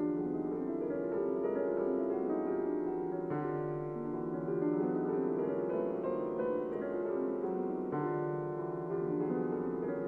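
Gentle piano music: a melody of held notes over low bass notes that change about every four seconds.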